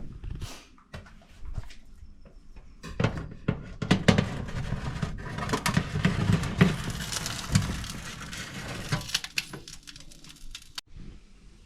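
Kitchen handling noises: a run of knocks, clicks and clatter with rustling, loudest from about three to nine seconds in, as dishes and utensils are handled in a small room.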